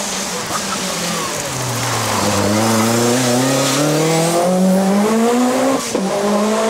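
Group B rally car engine accelerating hard: the revs dip, then climb steadily for several seconds. Near the end there is a sharp crack and the revs fall, an upshift, and the engine runs on at high revs.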